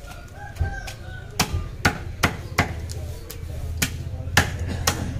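Knife blade scraping scales off a large kalibaush carp against a wooden block: about eight sharp, quick strokes at uneven spacing.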